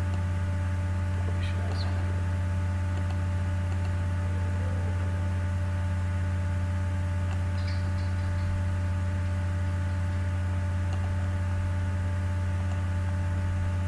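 Steady electrical hum in the recording, a low drone with a ladder of higher steady tones above it, unchanging throughout, with a couple of faint clicks.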